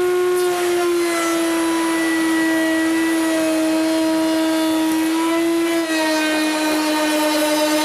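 Table-mounted router spinning a rail-and-stile frame bit, a steady high whine, while a wooden board is fed past it and the bit cuts the profile. The pitch steps down slightly about a second in and again near six seconds as the cut loads the motor.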